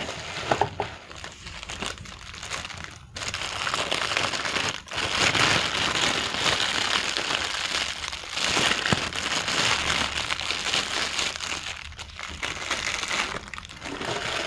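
Thin clear plastic bag crinkling and rustling as it is handled and pulled off a camera lens, growing louder and busier about three seconds in.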